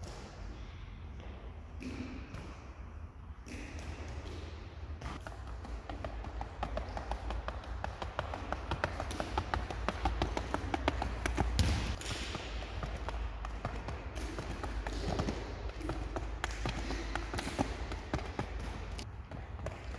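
Rapid footsteps of trainers tapping and scuffing on a hard sports-hall floor during agility-ladder footwork, quickening into a dense patter about five seconds in, over a steady low hum.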